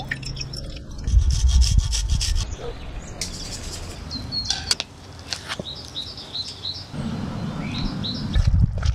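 A knife saws through soft burger buns near the end, while small birds chirp repeatedly in the background. Earlier there is a quick run of clicks and taps from cooking.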